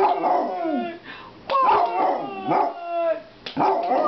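Basset hound howling: about three drawn-out howls in a row, each one sliding down in pitch before breaking off.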